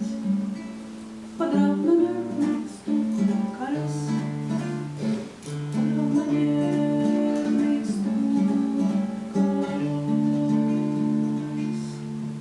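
Acoustic guitar playing the instrumental close of a song, strummed chords with ringing held notes.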